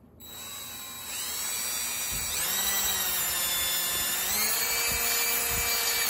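DeWalt cordless drill/driver running as it drills through a plastic bottle cap. The motor whine speeds up in steps over the first two and a half seconds, then holds steady.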